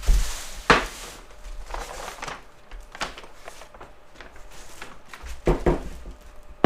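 Paper rustling and crinkling as it is spread out, with several sharp knocks from handling.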